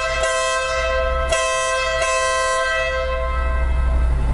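Denali SoundBomb horn on a Honda NM4 motorcycle blowing a loud two-tone blast, interrupted briefly about a second in and sounding again before stopping near three seconds in, over a low steady hum.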